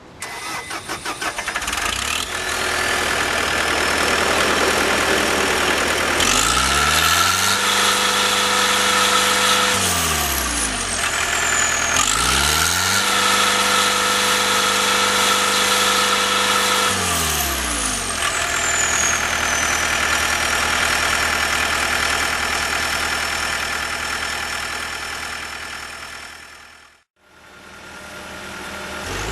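John Deere 323D compact track loader's diesel engine cranking and starting, then idling. It is revved up twice, each time held at high throttle for about four seconds before dropping back, and it shuts off a couple of seconds before the end. A high whine builds after start-up and rises and falls with the revs.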